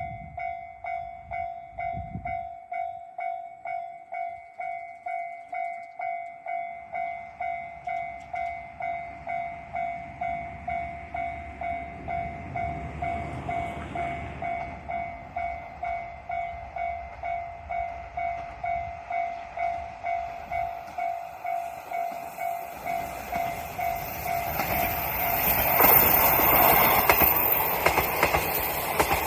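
Railway level-crossing warning bell ringing in a steady, even rhythm of about two dings a second. Near the end a train passes over the crossing, loud enough to drown out the bell.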